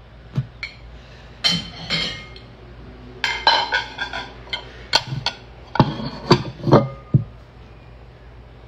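Dishes and glassware clinking and clattering in a series of sharp knocks, some ringing briefly, the loudest cluster about five to seven seconds in: tableware being handled as a table is set.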